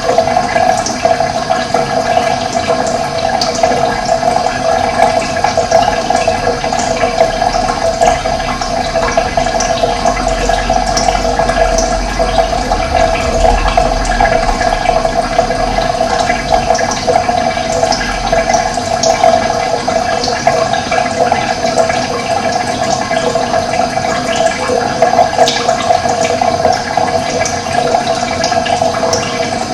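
Running water, a steady flowing rush with no change in level.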